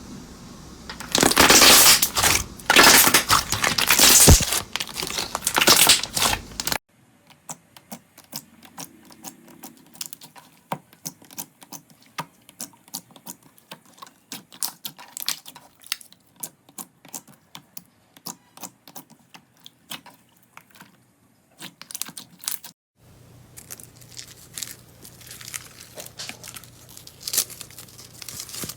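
Slime being squished and pressed by hand: loud crinkly crackling for the first several seconds, then a long run of small sharp pops and clicks, and softer squishing near the end.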